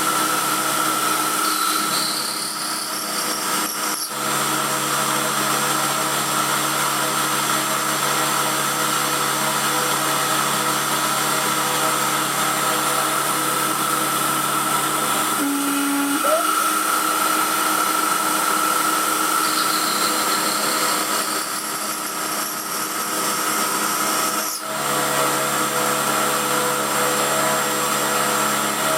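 Emco F1 CNC milling machine running steadily as it machines a cast aluminium engine pan, its spindle giving a steady whine over dense cutting noise. Twice a higher whine rises in pitch and ends with a brief dip in the sound, and a short low tone sounds about halfway through.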